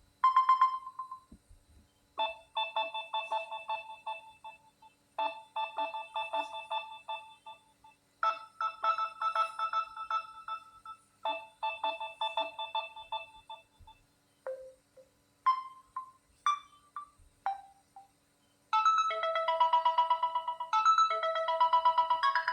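Samsung Galaxy A03 ringtones, short synthesized melodies. A brief tune repeats four times about three seconds apart, a few scattered single notes follow, and near the end a new, busier melody starts.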